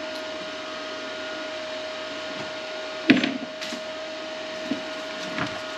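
Wire feed motor of a Hynade MTS155 FX flux-core welder running at its highest speed with a steady hum, pushing wire through the gun. A few clicks and knocks from handling the gun sound over it, the loudest about three seconds in.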